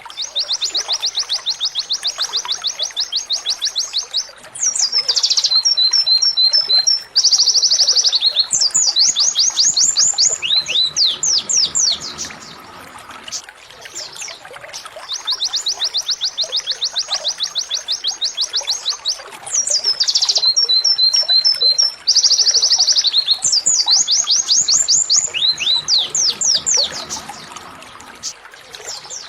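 Canary singing 'tembakan', rapid-fire high trills and quick rolling phrases a few seconds long with short pauses between them: a canary song recording used as a tutor song for training other songbirds. The same run of phrases repeats about halfway through, as a looped recording.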